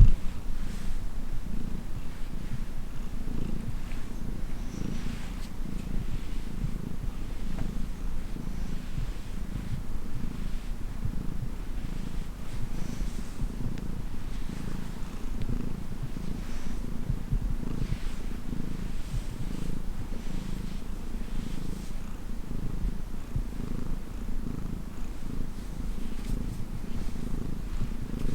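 Domestic cat purring steadily with a rapid, even low pulse while being massaged, a sign that it is content.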